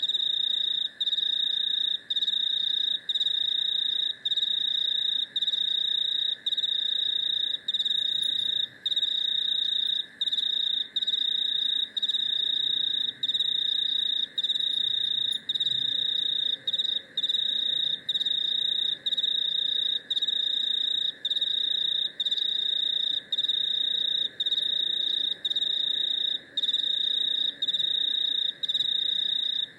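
Chorus of crickets and cicadas: a loud, high, steady trill broken by a short gap about once a second, over a fainter, lower continuous drone.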